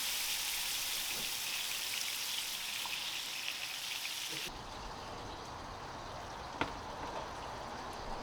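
Chicken sizzling and crackling in a hot frying pan, which cuts off abruptly about halfway through. A quieter low rumble follows, with a single sharp knock about two seconds later.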